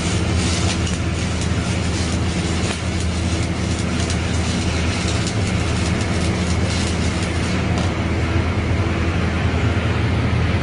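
Stick-welding arc crackling over a steady low mechanical hum; the crackle stops about eight seconds in while the hum runs on.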